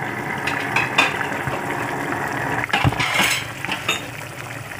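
Glass pot lid lifted off a pan of boiling broth, clinking against the pan a few times, with a louder clatter about three seconds in, over the steady sound of the broth at the boil.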